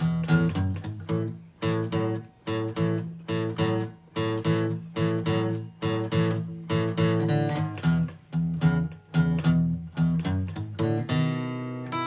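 Background music: an acoustic guitar strummed in a steady rhythm, ending on a chord left ringing near the end.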